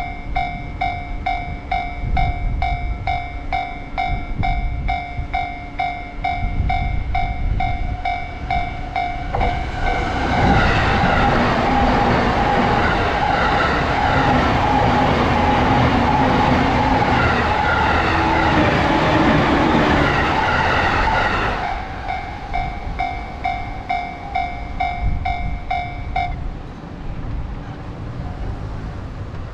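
Japanese railroad crossing warning bell ringing in a fast, steady ding-ding-ding. From about ten seconds in, an electric train passes for about twelve seconds and its loud running noise drowns the bell. The bell rings on for a few seconds after the train clears, stops, then starts again at the very end.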